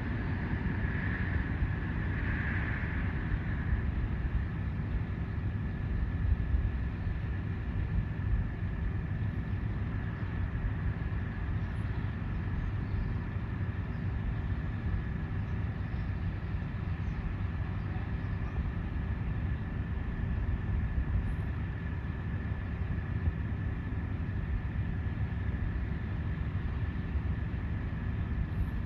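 Engine-driven repair machinery running steadily: a constant low drone with a steady high whine over it.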